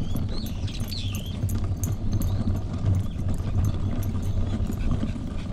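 Walking footsteps on pavement over a steady low rumble, with a few bird chirps in the first second or so.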